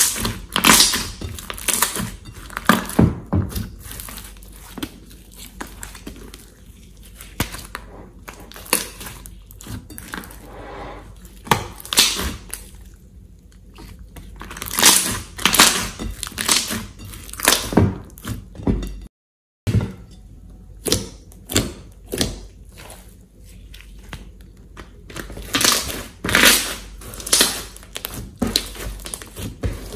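Thick pink slime being squeezed, stretched and pressed by hand, giving irregular clusters of wet clicks, pops and squelches as trapped air pockets burst. The sound cuts out for a moment about two-thirds of the way through.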